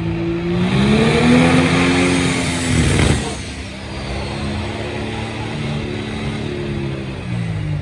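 Pro Stock pulling tractor's diesel engine under full load on a pull run, its pitch climbing over the first couple of seconds, holding steady, then dropping near the end. A brief rush of noise about three seconds in is the loudest moment.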